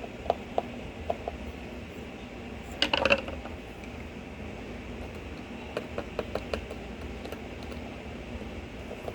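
Small clicks and taps of a knife blade prying along the edge of a Samsung Galaxy S8 Active's back cover to release its clips, with a louder brief clatter about three seconds in and a quick run of clicks a few seconds later.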